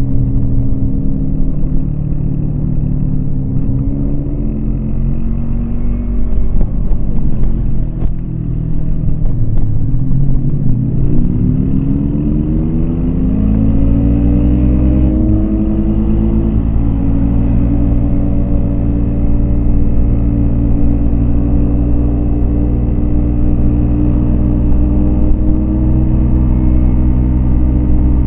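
Yamaha MT-25 motorcycle's parallel-twin engine under way: the revs drop about eight seconds in, climb steadily over the next several seconds with a brief break near fifteen seconds, then hold a steady higher note.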